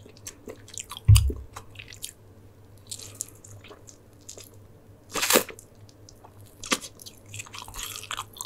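A person biting into and chewing a slice of brown sugar bubble tea pizza studded with tapioca pearls, close to the microphone, with scattered small mouth clicks. A low thump about a second in and a sharp click a little after five seconds are the loudest sounds.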